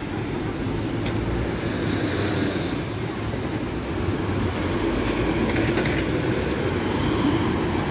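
Steady rumble of busy road traffic, heavy vehicles such as buses running close by, with a few faint clicks about two-thirds of the way through.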